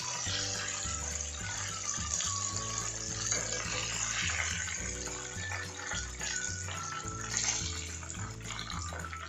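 Chicken wings sizzling in hot cooking oil in a frying pan, a steady hiss as they are double-fried for crispness, with background music throughout.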